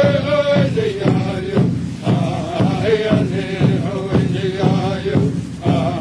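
Music: a singing voice over a steady beat.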